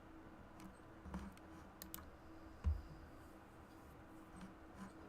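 Scattered clicks of a computer mouse and keyboard, a few at a time, with one soft low thump about halfway through and a faint steady hum underneath.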